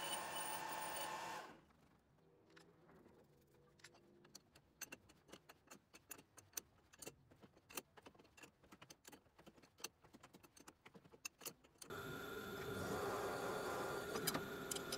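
A metal lathe runs with a steady hum, then stops about a second and a half in. This is followed by about ten seconds of quiet broken by sharp, irregular clicks and ticks as an M12 thread is cut by hand with a die on the lathe. Near the end a drill press starts drilling a 12 mm hole through a steel bar held in a drill vise, with a steady grinding whir and a steady tone.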